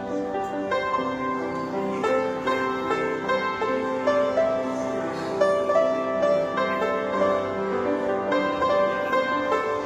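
Piano playing a slow melody over held chords, one note or chord after another with no break.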